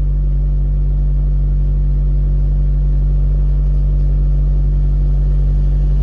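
Honda Fit's 1.3-litre L13 four-cylinder engine idling steadily at a raised idle, which the mechanic calls not normal and links to a throttle body cleaning that threw it out of tune, needing a throttle relearn.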